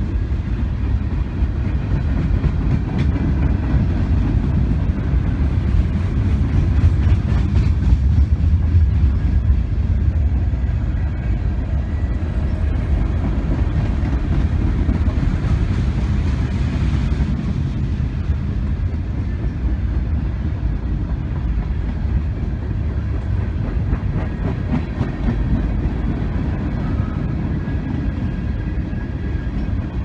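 Freight train of tank cars and container cars rolling past: a steady low rumble of steel wheels on the rails, a little louder about a quarter of the way in.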